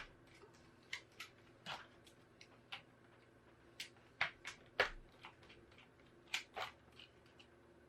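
Faint, irregular small clicks and taps of a screwdriver working screws out of a laptop's plastic base, with screws being handled and set down; about a dozen, the loudest right at the start and just before the middle.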